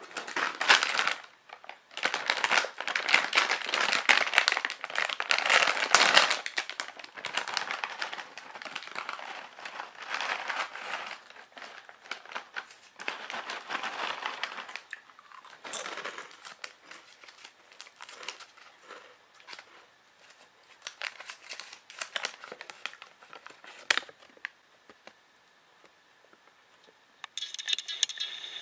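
Irregular crinkling and rustling noise in fits and starts, densest for the first several seconds and thinning out after that.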